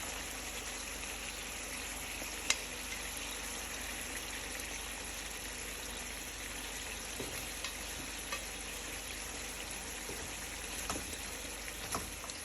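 Pan of cream sauce with fried salmon in it, sizzling steadily over the heat. One sharp click about two and a half seconds in, and a few faint ticks near the end.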